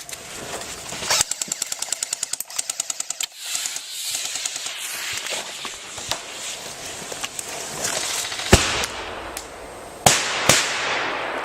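Airsoft electric rifle, a G&G GR16, firing a rapid full-auto burst of evenly spaced clicks for about two seconds. A few single sharp cracks follow near the end, the loudest of them about ten seconds in.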